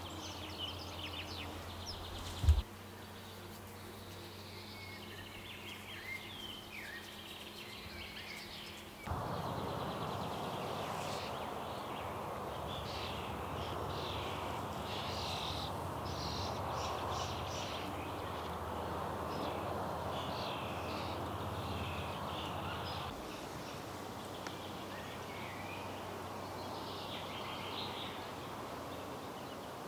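Woodland ambience: birds chirping on and off over a steady background hiss, which turns louder and fuller about nine seconds in and drops back about twenty-three seconds in. A single low thump comes about two and a half seconds in.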